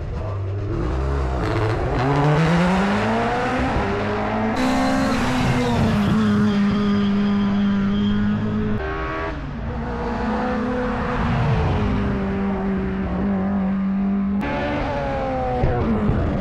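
Hill-climb racing car engines at high revs, pitch climbing under hard acceleration and dropping back at gear changes. The sound jumps abruptly a few times where different passes are cut together.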